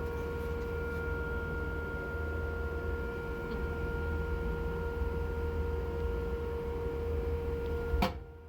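Skid loader running at steady speed, a low rumble with a constant whine over it. A sharp click about eight seconds in, then the sound drops away suddenly.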